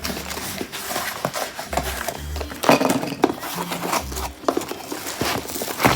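Unboxing sounds: packaging rustling with sharp clicks and clatters of plastic storage containers being handled, the loudest clicks a little past the middle and again near the end.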